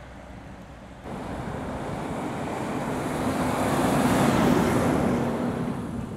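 A heavy goods lorry passing close by, with engine and tyre noise swelling to a peak about four seconds in and then fading, a steady low engine note under it. The sound comes in abruptly about a second in. Wind buffets the microphone throughout.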